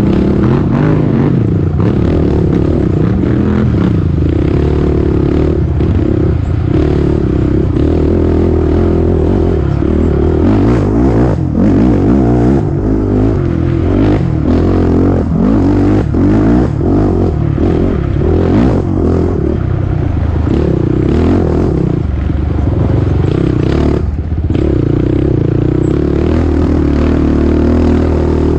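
Off-road racing engine under hard, constantly changing throttle on a rough dirt trail, rising and dropping in pitch, with knocks, rattling and scraping of the machine over ruts and roots. There is a brief dip in the engine near the end.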